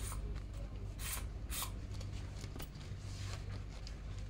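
Umbrella being handled and shaken open, its fabric canopy rustling in a few short swishes over a steady low hum of the shop.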